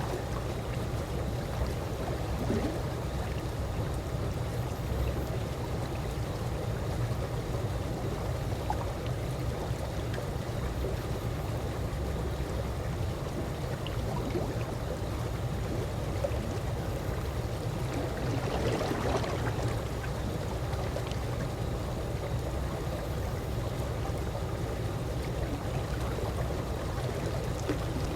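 Calm swimming-pool water lapping gently: a steady low wash with small gurgles, and a slightly livelier splash about two-thirds of the way through.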